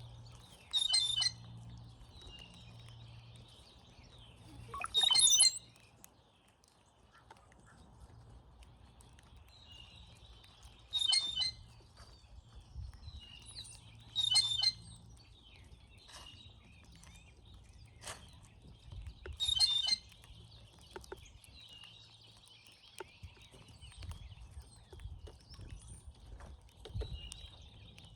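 Brown-headed cowbirds calling at a feeder: five loud, short, gurgling-whistled bursts, with softer high chatter from the flock between them.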